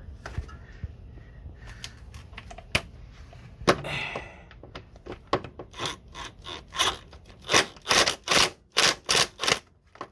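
A few scattered clicks and knocks, then a run of quick rubbing strokes, about two or three a second.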